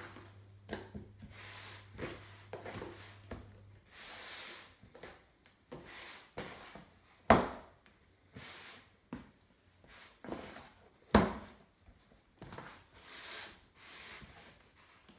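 Wet hands stretching and folding a very slack, 88%-hydration sourdough bread dough in an oiled plastic tub: soft squelching, sucking and rubbing swells every second or two. Two sharp knocks, about seven and eleven seconds in, are the loudest sounds.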